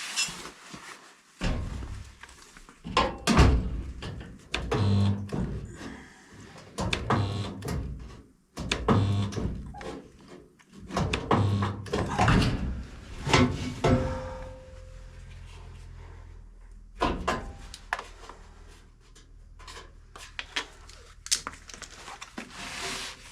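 Resistance spot welder joining a steel wheel arch tub to the car body: a string of irregularly spaced clunks from the electrode arms, many with a short low buzz as each weld is made.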